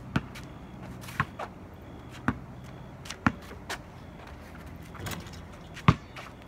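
A basketball bouncing on pavement, single sharp bounces about a second apart, then a pause and one louder bounce near the end.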